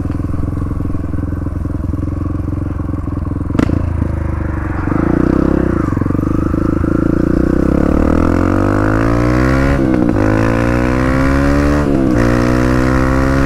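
Dirt bike engine under way: it runs steadily at first, then the revs climb, with two upshifts about ten and twelve seconds in where the pitch drops and climbs again. There is a single sharp tick a few seconds in, and wind rushes over the helmet-mounted microphone.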